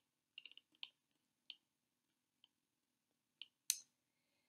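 Near silence with a few faint, scattered clicks and one sharper click about three-quarters of the way through.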